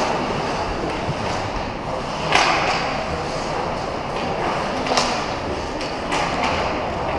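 Ice hockey play in a large indoor rink: skates scraping on the ice and voices calling, with sharp hits of stick and puck about two and a half seconds in and again at five seconds.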